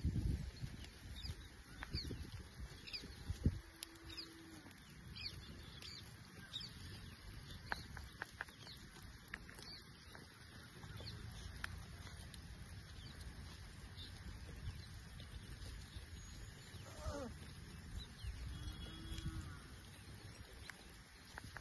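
Faint outdoor ambience around a grazing flock of sheep: many short, high bird chirps scattered throughout, and a few faint animal calls, one about four seconds in and others near the end, over a low rumble.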